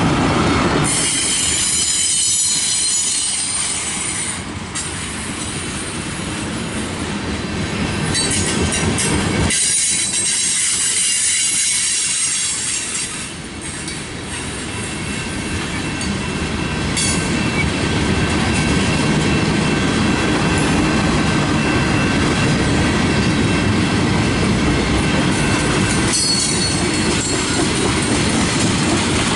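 Freight cars (boxcars, then tank cars) rolling past on steel wheels: a steady rumble on the rails with a high, thin wheel squeal running over it. A few sharp clicks from the wheels come at odd intervals, and the rumble briefly dips twice.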